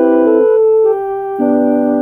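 Solo keyboard music: held chords whose notes stay steady rather than fading, moving through a few chord changes, with a fuller, lower chord coming in near the end.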